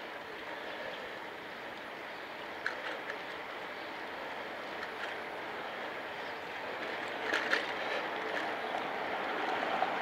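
Steady rolling and wind noise of a bicycle ride heard from a bike-mounted action camera, growing slightly louder toward the end, with a few light clicks and rattles.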